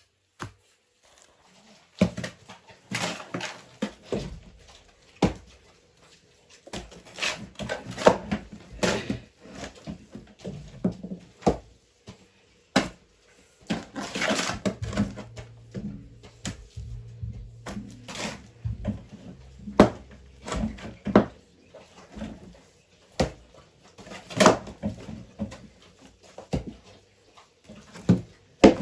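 Irregular knocks, taps and scrapes of hands and objects at work, several sharp clacks standing out among softer handling noise.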